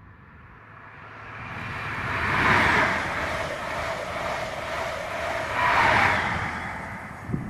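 An HST (InterCity 125: Class 43 diesel power cars with Mk3 coaches) passing at speed, with diesel engine note and wheel and rail noise building up. It peaks loud about two and a half seconds in as the leading power car passes, stays high while the coaches run by, and peaks again about six seconds in as the rear power car goes past, then starts to fade.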